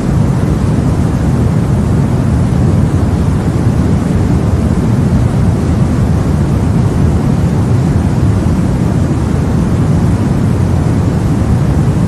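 Steady, even white noise for sleep, deep-toned with most of its weight low down and no change throughout.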